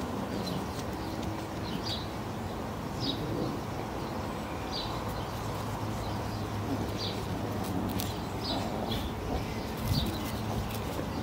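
Small garden birds chirping, with short high calls about once a second over a steady outdoor background.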